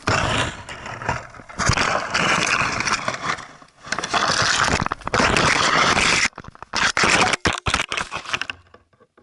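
Twigs and branches scraping and crackling loudly against a dog-mounted action camera as the dog pushes through a bush. A run of sharp knocks follows, as the camera is knocked off its harness, and then it goes nearly silent just before the end.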